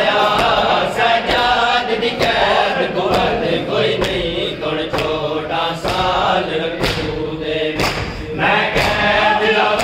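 Male noha reciter chanting a mourning lament with men's voices joining him. Sharp hand slaps of chest-beating (matam) mark the rhythm about once a second.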